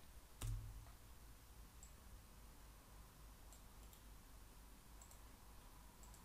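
Near silence: room tone with a few faint computer-mouse clicks, and one louder click with a low thud about half a second in.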